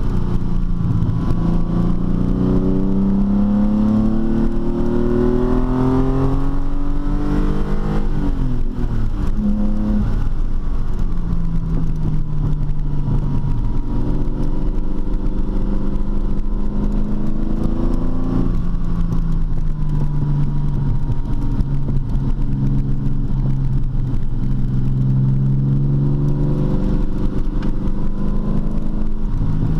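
TVR T350's straight-six engine pulling under acceleration: its note climbs for about eight seconds, drops suddenly at a gear change, then runs at steadier revs with another change about two-thirds of the way through.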